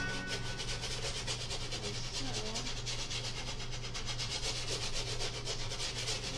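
Paintbrush scrubbing oil paint onto a canvas in quick, rapid back-and-forth strokes, a scratchy rubbing sound.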